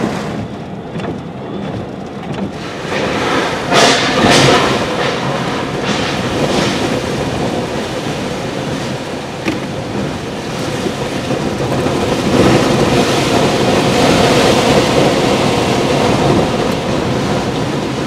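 Tropical-storm wind and driving rain buffeting a vehicle: a steady rush of noise that surges in gusts about four seconds in and again in the second half.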